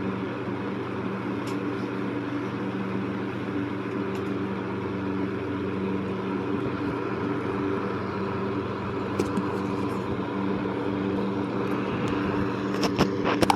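Electric fan running steadily: an even rush of air over a low motor hum. A few sharp clicks come near the end.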